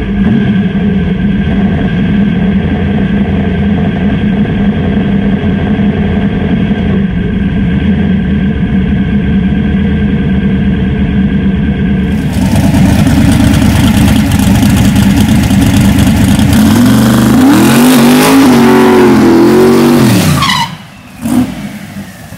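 Chevy S10 drag truck's engine running loudly at a steady idle, heard from inside the cab. About sixteen seconds in it is revved up and down several times for a burnout, then drops away sharply near the end.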